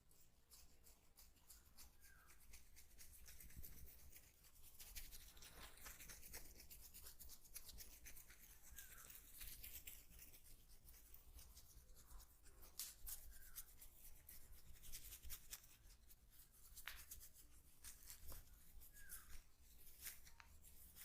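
Faint, dense crackling and rubbing of hands working through hair and over skin during a head massage, with a few faint short squeaks.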